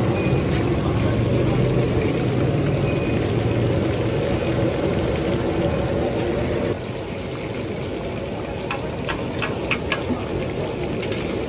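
Chicken pieces deep-frying in a large iron wok of hot oil, a steady sizzling hiss. A low hum runs under it until it drops away about two-thirds through. Then a few sharp clicks of the metal skimmer knocking against the wok.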